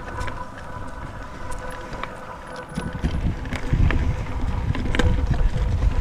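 Mountain bike rolling over a dirt trail: wind on the microphone and a low rumble from the tyres, with scattered clicks and rattles from the bike, heavier in the second half. A faint steady whine runs underneath.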